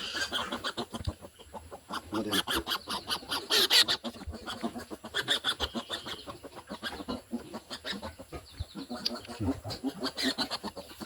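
Week-old piglets squealing and grunting in a rapid string of short calls as they are caught and handled for their iron injections.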